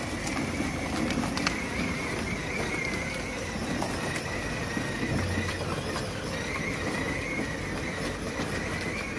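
A vehicle running: a steady rumbling noise with a high, wavering whine over it.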